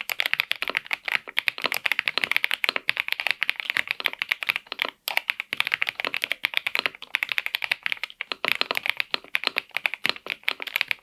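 Kzzi K98 mechanical keyboard being typed on fast: a dense, continuous run of keystroke clicks with a brief pause about five seconds in, stopping suddenly near the end.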